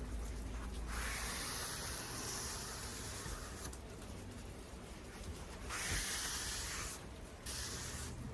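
Wood stain being worked onto a fir board, heard as long rubbing strokes: a hissing stroke of about two and a half seconds starting about a second in, another shorter one near six seconds, and a brief one near the end.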